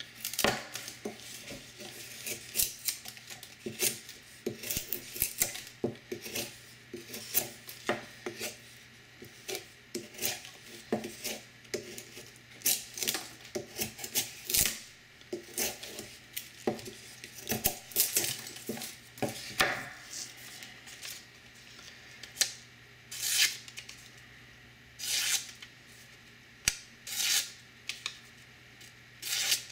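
Maxamet-steel knife blade whittling a pine stick: a long run of quick shaving cuts, each a short scraping rasp, coming less often in the last third. The cuts test the apex strength of an edge freshly sharpened on a 3000-grit silicon carbide water stone.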